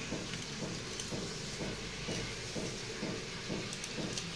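Soft rhythmic scraping strokes, about three a second, as a walking catfish is worked against a bonti blade, over a steady background hiss.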